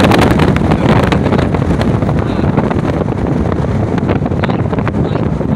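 Wind buffeting the microphone over the rumble of a moving vehicle, a loud rough rush with frequent crackles that eases slightly toward the end.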